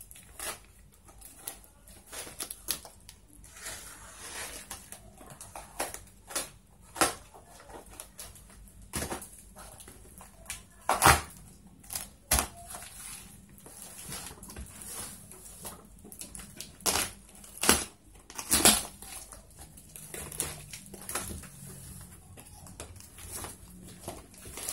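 Box cutter slicing through packing tape and cardboard on a taped-up parcel, with irregular scraping, ripping and knocking as the box is cut and handled. A few louder sharp rips or knocks come about eleven seconds in and again around seventeen to nineteen seconds.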